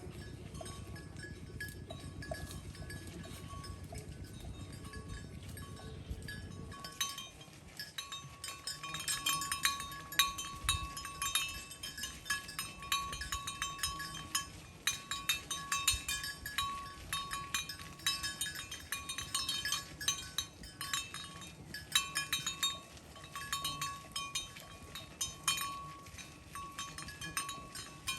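Cowbells on grazing cows clanking irregularly, each clank leaving a ringing tone. They start about seven seconds in and go on in uneven clusters. Before that there is a low, even rushing noise.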